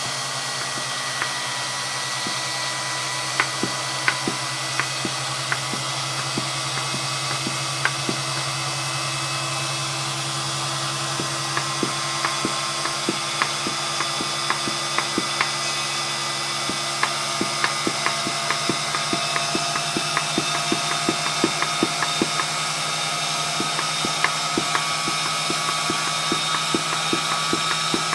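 Dumore internal tool post grinder running steadily after oiling, a constant motor hum with a scatter of light clicks that become more frequent in the second half.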